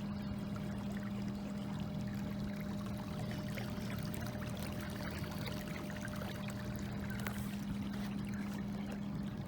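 Water trickling and lapping around a small fishing boat, under a steady low hum.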